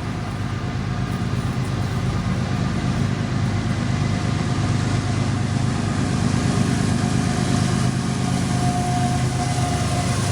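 A vehicle engine running steadily with a low hum, slowly growing louder.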